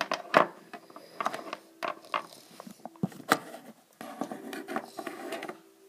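A small plastic toy figure handled against a hollow plastic playset, making irregular light clicks and taps. There is a sharper knock near the start and another about halfway through.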